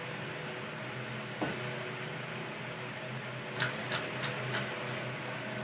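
Steady whirring room noise, like a running electric fan, with a faint tick a little over a second in and a quick run of sharp clicks about three and a half seconds in.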